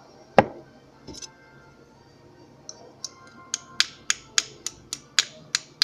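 A raw egg tapped against the rim of a plastic container: one hard knock, then a quick series of sharp taps at about three or four a second, the shell not cracking because the plastic is too soft to break it.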